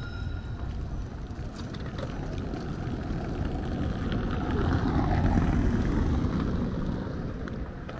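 A car driving past on a cobblestone street, tyre noise swelling to its loudest about five seconds in and then fading away.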